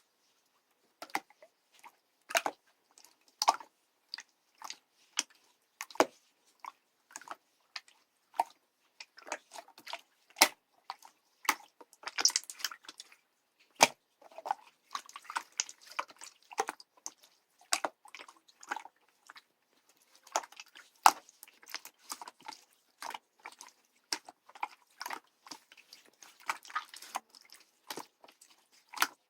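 Slime being mixed and kneaded by hand, giving many short, irregular sticky clicks and pops with softer squishing between them.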